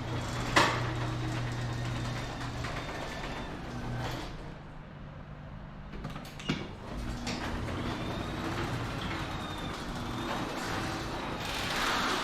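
Sectional garage door moving along its tracks, rollers rumbling, with a sharp knock about half a second in and another about six and a half seconds in.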